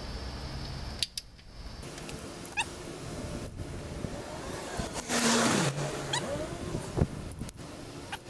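Wrench and socket turning the stretch-type head bolts of a Ford 1.9 L cylinder head through their final 90-degree angle pass: scattered sharp metal clicks, and a short creaking squeal that falls in pitch about five seconds in as a bolt is pulled round.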